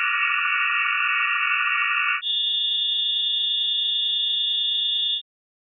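Synthesized sine-wave chords made from atomic emission spectra shifted down ten octaves. A steady cluster of many tones for californium's lines changes about two seconds in to a sparser, higher chord for einsteinium's lines, which cuts off suddenly near the end.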